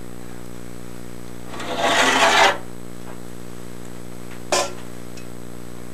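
Gear being handled on a plywood workbench: a scraping, rubbing noise lasting about a second, then a single short knock a couple of seconds later, over a steady low hum.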